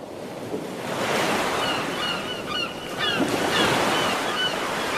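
Surf washing on a beach, swelling about a second in. Short, squeaky bird calls repeat over it.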